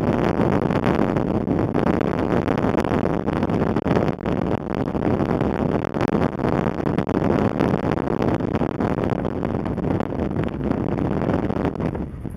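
Steady rushing noise of a moving car: wind buffeting the microphone over the rumble of the tyres and engine.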